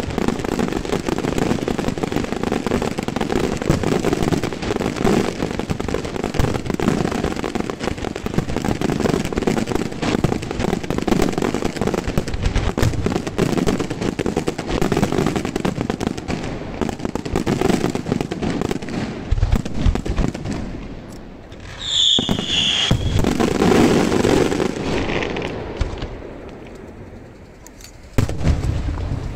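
Aerial fireworks display: a dense, continuous barrage of shell bursts and crackling stars that dies away about twenty seconds in. A fresh swell of sound follows, then a single sharp, loud bang near the end.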